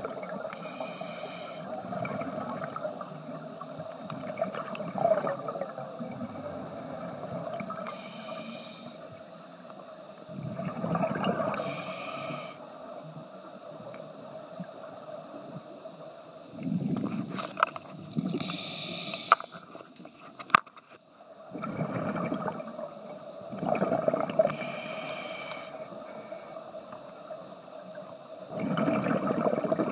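Scuba regulator breathing underwater: a hiss on each inhale, then a bubbling rush of exhaled air, about one breath every five seconds. A faint steady hum runs under it, with a few sharp clicks in the middle.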